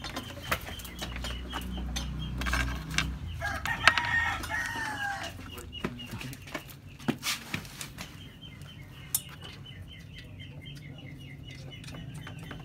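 A rooster crows once, starting about three seconds in, in a call of nearly two seconds that drops in pitch at the end. Around it are scattered sharp clicks and knocks of tools and parts being handled, and a low rumble in the first few seconds.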